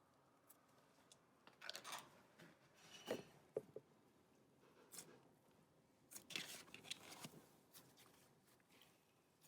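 Slime being handled and stretched by hand: faint, scattered squishes and crackles, with a couple of sharper pops about three and a half seconds in.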